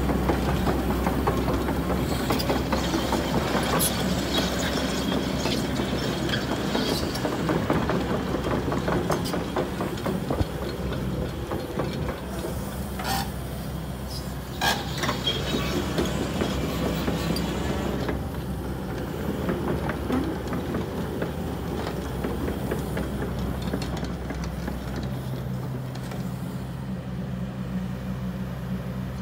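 Kobelco ED160 Bladerunner crawler excavator running, its diesel engine humming steadily under a dense metallic clatter of steel tracks and working parts as it moves and swings its boom and tiltrotator bucket, with a few sharp clanks along the way. The clatter eases off about two-thirds of the way through, and the engine note shifts near the end.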